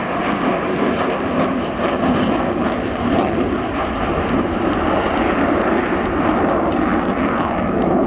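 Jet noise from a twin-engine fighter jet flying aerobatics overhead: a loud, steady rushing roar with no break.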